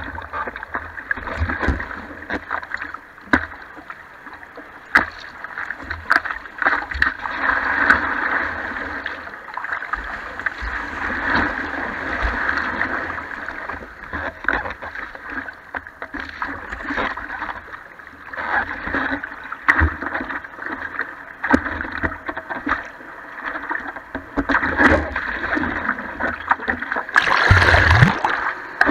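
Choppy surf sloshing and slapping against a surfboard, with frequent short sharp knocks of water hitting the board. Near the end, whitewater from a breaking wave washes over the board in a louder surge.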